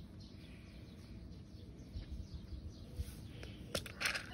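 Outdoor ambience with a low rumble and faint bird chirps, then a couple of sharp clicks and a brief burst of rustling noise near the end.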